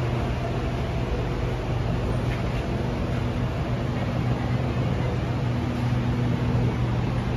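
Kawasaki & Nippon Sharyo C751B metro train standing at the platform with its doors open, its equipment humming steadily with a low, even drone.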